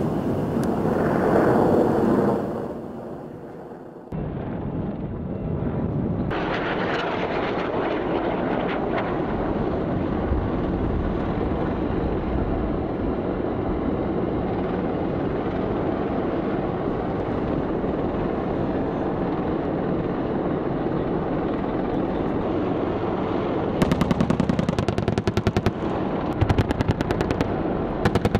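A helicopter sound fades out, followed by a steady rushing noise. Near the end come two bursts of rapid automatic fire from an AH-64 Apache's 30 mm chain gun, each about two seconds long.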